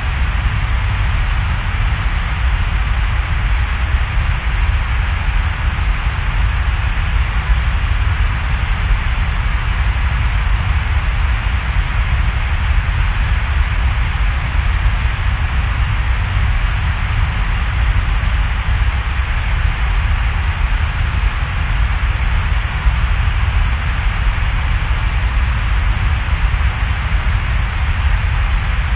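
Steady, unchanging noise: a deep rumble with an even hiss over it, without any tune, beat or separate strokes.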